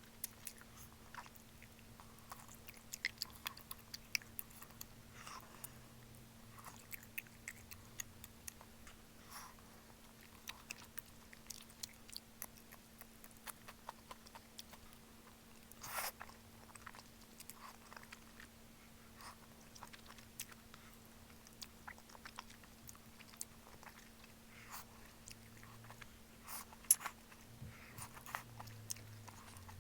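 A person eating malatang: irregular small mouth clicks, chewing and biting noises, scattered through the stretch. A faint steady low hum runs underneath.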